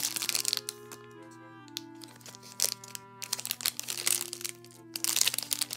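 Clear plastic bag crinkling in several bursts as the squishy toy sealed inside it is turned over in the hands. Background music with held notes runs underneath.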